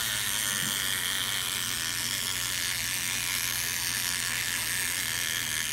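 Toy fishing game's gear mechanism running steadily as it turns the pond of fish.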